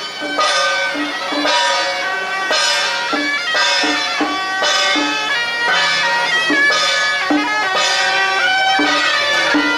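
Suona (Chinese double-reed shawms) playing a loud traditional procession melody, with a steady beat underneath about twice a second.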